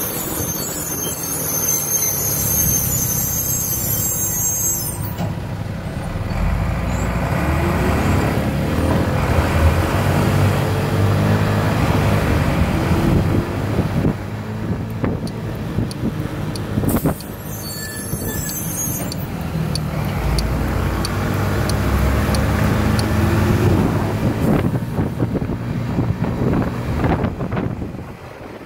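Motorcycle engine running while riding, its pitch climbing twice as it accelerates. Two spells of high hissing, one at the start and one about two-thirds of the way through.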